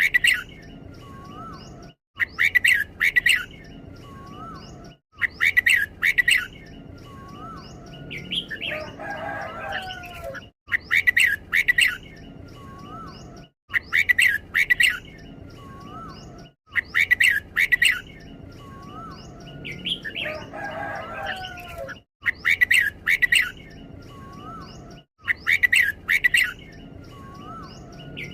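Red-whiskered bulbul singing: a short, loud burst of chirping notes repeated about every three seconds, the doubled phrasing keepers prize in this bird.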